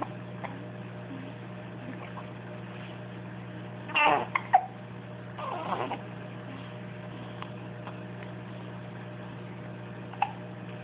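A baby making two short vocal sounds, one about four seconds in and another a second and a half later, over a steady low hum.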